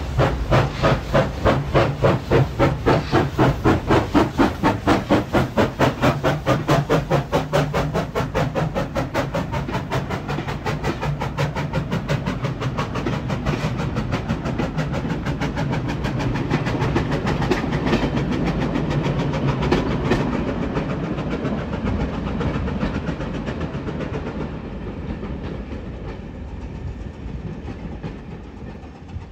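Steam locomotive pulling away with a train of coaches: exhaust chuffs about two a second at first, quickening as it gathers speed, with the coaches rattling over the rail joints. The sound fades in the last few seconds as the train draws away.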